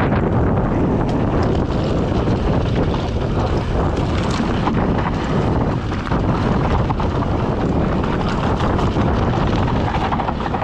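Wind rushing over the microphone and a mountain bike's tyres rolling over a loose, stony dirt trail at speed, with many small clicks and knocks from stones and the bike's parts.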